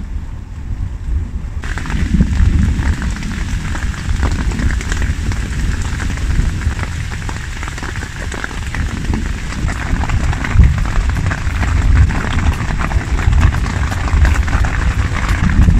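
Heavy rain falling hard in a thunderstorm. The hiss thickens about a second and a half in, over a constant deep rumble.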